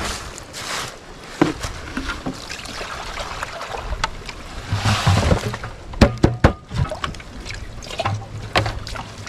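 Water sloshing and gravel swishing in a gold pan as sluice concentrates are panned down, with a few sharp clicks about six seconds in.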